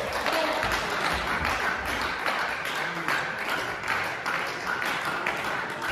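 Spectators applauding a won point in a table tennis match, many quick, uneven hand claps that echo in a sports hall.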